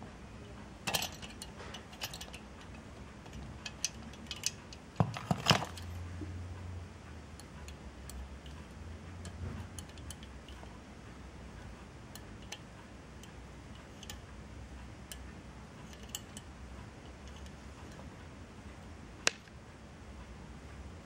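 Scattered light clicks and clinks of small hard parts being handled, with a louder cluster of knocks about five seconds in and one sharp click near the end.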